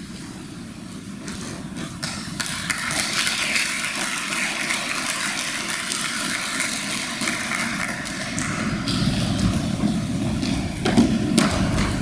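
Hall audience clapping, starting about a second in and going on steadily, with a thump near the end.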